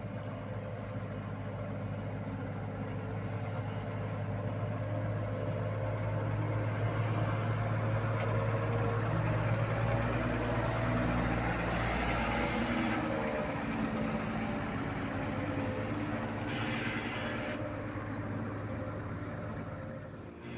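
Diesel engine of heavy road-paving machinery running steadily with a deep, even hum, growing louder toward the middle and easing off afterwards.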